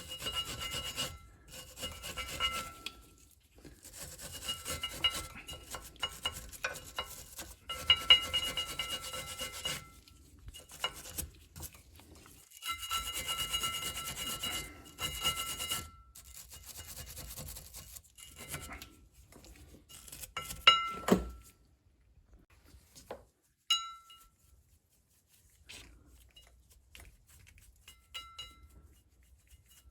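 Scraping and rubbing strokes on brake hardware, in several runs of a few seconds each, with a squeaky ringing edge. A sharp knock comes about two-thirds of the way in, then a few light clicks.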